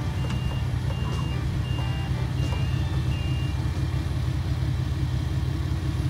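Diesel engines of a mini excavator and skid steer running steadily, with a backup alarm beeping about every 0.7 seconds and stopping about three seconds in.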